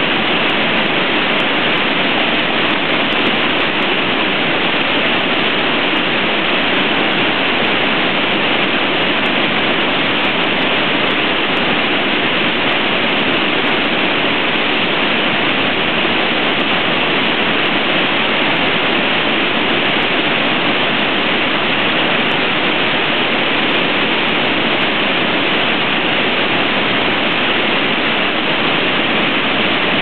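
Woodland waterfall in spate, swollen by heavy rain: floodwater pouring over rock ledges into a churning pool with a loud, steady rushing.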